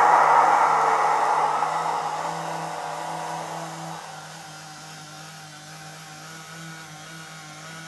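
H0 model diesel locomotive with a sound decoder, its engine sound and drive whirring and fading away over about four seconds, leaving a steady low hum.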